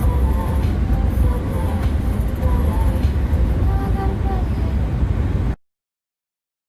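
Steady low rumbling noise with a few faint short chirps above it, cutting off abruptly about five and a half seconds in.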